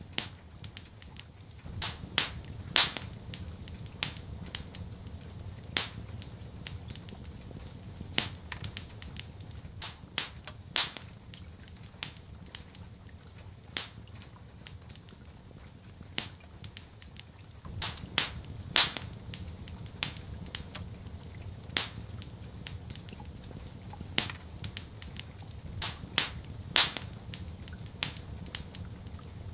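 Wood fire in a fireplace crackling, with irregular sharp pops and snaps every second or so over a low steady rumble. The loudest pops come about two to three seconds in, around nineteen seconds in and near the end.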